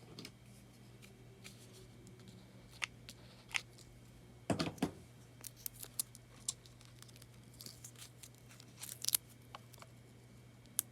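Quiet scattered clicks, rustles and small tearing sounds of cardstock and adhesive being handled in paper crafting, loudest about four and a half seconds in and again near nine seconds, over a low steady hum.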